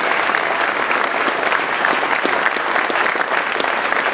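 A large crowd applauding: dense, steady clapping.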